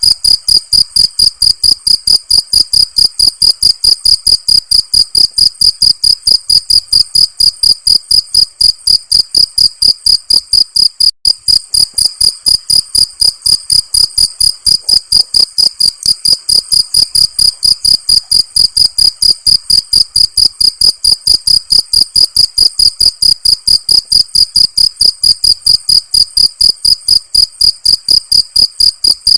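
Cricket chirping in a rapid, even string of high-pitched pulses that carries on without a break in rhythm.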